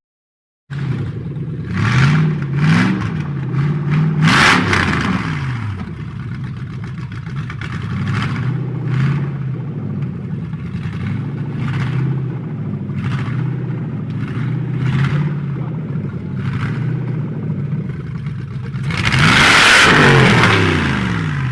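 Lexus 3UZ-FE 4.3-litre V8 engine running and being revved: a couple of short rises in pitch near the start, steady running through the middle, and a longer, louder rev near the end.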